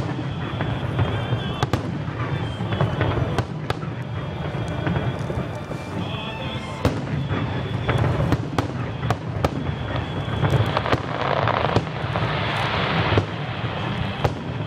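Fireworks display: aerial shells bursting in an irregular string of sharp bangs and crackles.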